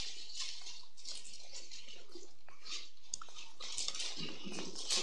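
Thin Bible pages being leafed through at a pulpit microphone: soft paper rustles and crackles over a steady background hiss.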